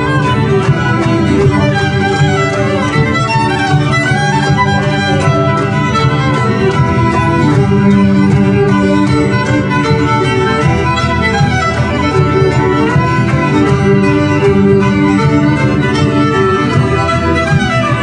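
Live English folk band playing an instrumental break in a morris-dance song.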